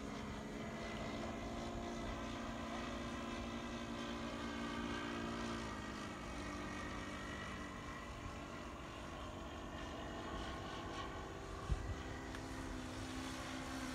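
Engine drone of several radio-controlled model warplanes flying overhead, steady, its pitch dropping slightly about six seconds in and rising again near the end as the planes pass. A short knock near the end.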